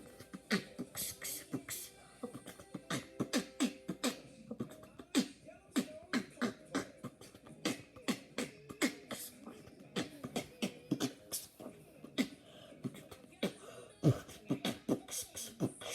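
A young beatboxer performing a fast beat of vocal drum sounds, built around the inward snare, a snare made on a sharp in-breath. The sharp strokes come several a second without a break.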